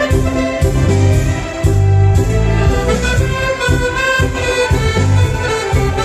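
Live ballroom dance music played by a dance band: a melody over strong bass notes and a regular beat.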